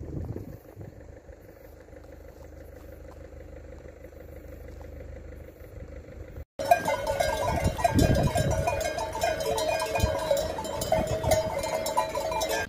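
Low steady background noise, then about halfway through a sudden switch to the clanking of many sheep bells as a flock of sheep walks along a road.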